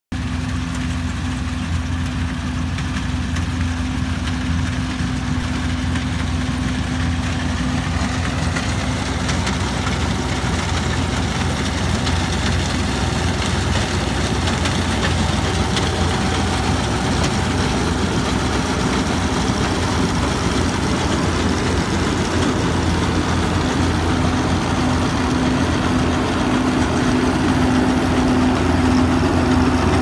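John Deere combine harvester running steadily while harvesting wheat: a constant engine drone with the hum of the cutting and threshing machinery, growing a little louder over the last part.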